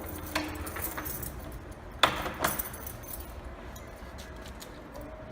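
Keys clinking as they are handled, with a few sharp metallic clicks, the loudest two about two seconds in.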